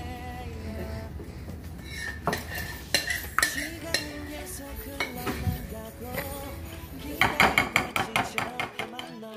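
Metal spoon clinking and scraping against a ceramic mixing bowl and baking dish as cake batter is scooped out, with a quick run of taps near the end.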